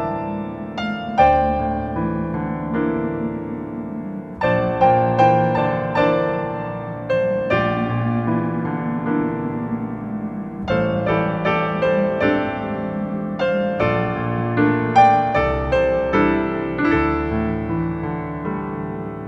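Background piano music: notes and chords struck in short phrases, each one dying away.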